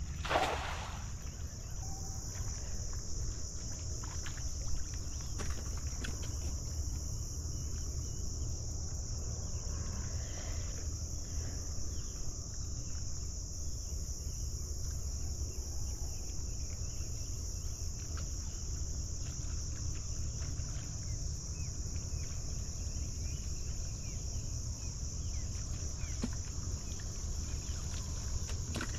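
A steady, high-pitched chorus of insects such as crickets, with a low rumble underneath. About half a second in, a brief sweeping rush as the thrown cast net comes down on the water.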